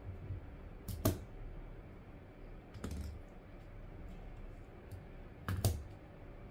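Light clicks and knocks of small phone parts and a precision screwdriver being handled and set down on a work mat: three short knocks, the loudest a quick pair near the end.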